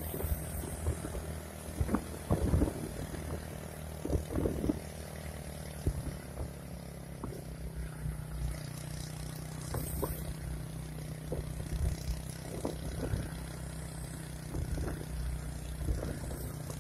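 A vehicle engine running steadily with a low hum, with scattered knocks and rattles.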